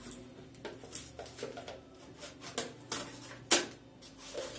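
Paper lid being peeled back from a Maruchan Instant Lunch noodle cup: a string of small crackles and ticks, with one sharp, loud crack about three and a half seconds in.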